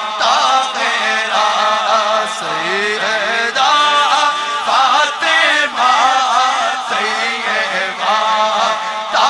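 Chanted vocal music: a voice singing a slow melody in long, wavering held notes that glide from pitch to pitch, with no clear instruments.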